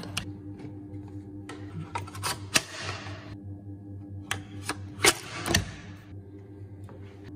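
Sharp metallic clicks of large brass .375 CheyTac cartridges being pressed into a rifle magazine and the rifle's bolt action being worked. There are a handful of separate clicks, a short sliding rasp about two and a half seconds in, and a heavier clack about five and a half seconds in.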